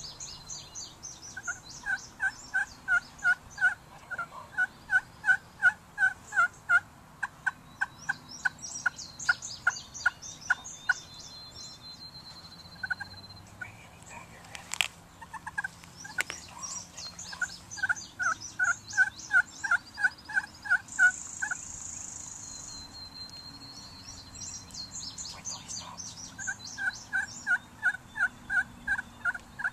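Wild turkey calling: several long runs of evenly spaced yelping notes, about three a second, with pauses between runs. Songbirds chirp faintly higher up, and two sharp clicks come about halfway through.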